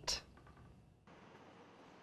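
Near silence after the tail of a woman's last word. A faint, even hiss comes in about halfway through.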